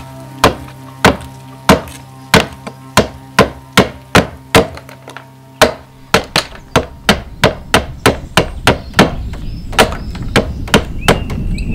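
Hand axe striking a wooden board in a steady run of sharp blows, hewing the board flat: about one blow every half second, quickening to about three a second midway.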